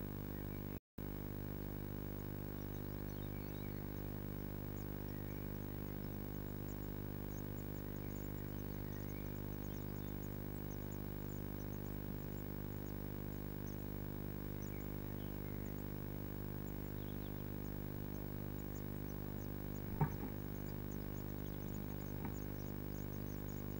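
Steady electrical hum of many evenly spaced tones from the nest box camera's audio, with faint high ticks scattered through and a single sharp knock about 20 seconds in. The sound cuts out completely for a moment about a second in.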